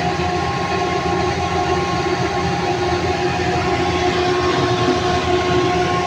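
A machine running steadily nearby: a constant loud drone with a few held tones.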